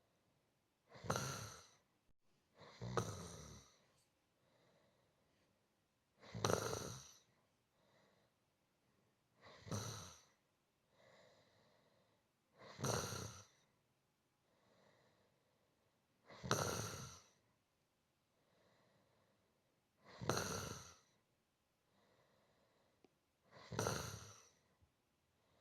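A person snoring steadily, with a snore about every three and a half seconds and a fainter breath between snores.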